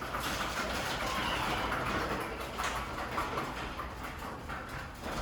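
Sectional garage door closing under an electric opener, its rollers rattling and clattering steadily along the tracks. The owner says the door sounds terrible and blames the door itself, not the quiet opener.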